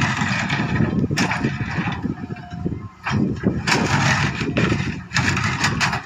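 A heavy diesel engine of road-construction machinery running close by, with irregular harsh noisy surges over its steady low rumble.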